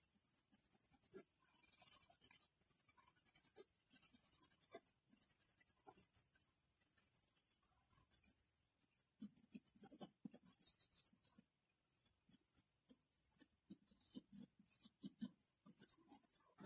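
Faint scratching of a graphite pencil stroking across drawing paper as it shades. The strokes are longer in the first few seconds; after a short pause about two thirds through they become quicker and shorter.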